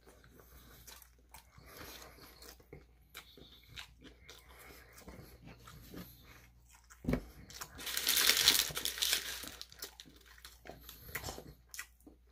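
Close-up eating sounds of a shawarma wrap: soft wet chewing clicks and small crunches. About seven seconds in there is a low thump, then a loud paper rustle for about a second and a half as the paper wrapper is handled.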